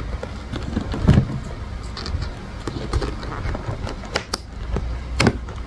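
A paper gift bag being handled: rustling and crinkling paper with a few sharp clicks and knocks scattered through.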